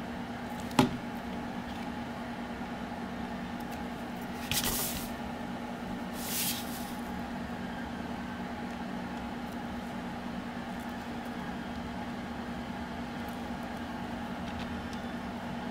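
Steel pliers working a small metal piece onto a fishing wire: a sharp metallic click about a second in, then two short scraping crunches, over a steady low background hum.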